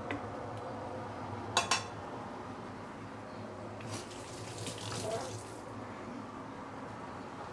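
A cooking utensil clinks twice against a pot of chicken in its braising liquid about a second and a half in. Then comes a couple of seconds of sloshing and scraping in the liquid, over a steady low hum.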